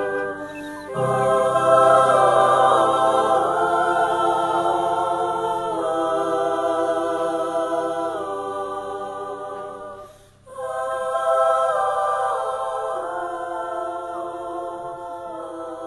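Background music: sustained choir-like vocal chords held for a few seconds each, with a short break about ten seconds in.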